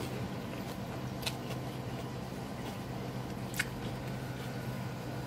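Steady low hum of background noise, with two faint sharp clicks, one about a second in and one about two-thirds of the way through.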